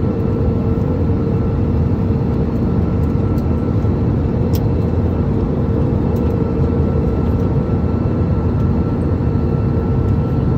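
Jet airliner cabin noise during descent: a steady low rush of engines and airflow with a few faint steady hums.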